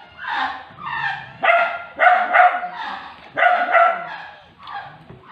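A dog barking off camera in a steady run of barks, about two a second, getting weaker near the end.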